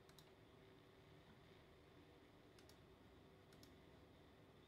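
Near silence with a faint steady hum, broken by three quick double clicks of a computer mouse: one near the start, one about two and a half seconds in, and one about a second later.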